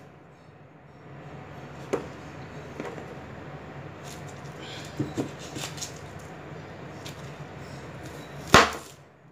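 Kitchen knife cutting a red onion on a plastic cutting board: a few sharp knocks of the blade on the board, the loudest near the end, over a low steady hum.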